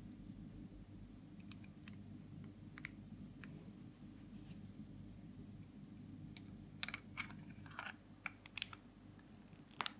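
Sharp metallic clicks of a handmade 9 mm Star Super B-style pistol being handled: a single click, then a quick cluster of clicks as the magazine is pushed into the grip, and one more near the end.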